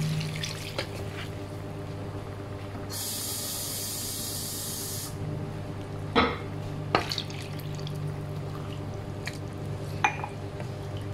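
Water poured from a mug into a pan of simmering chicken curry, with a hiss lasting about two seconds a few seconds in. A wooden spatula knocks against the pan a few times as the curry is stirred, over a steady low hum.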